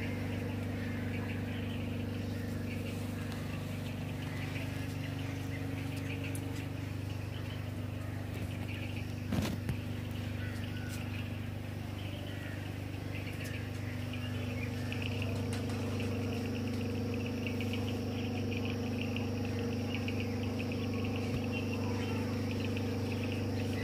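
A steady low mechanical hum, like a running motor or engine, under birds chirping outdoors, with one sharp knock about nine and a half seconds in.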